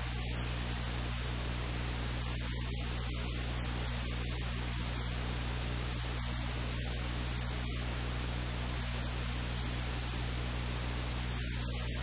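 Steady hiss with a low electrical hum underneath, unchanging throughout; no speech comes through.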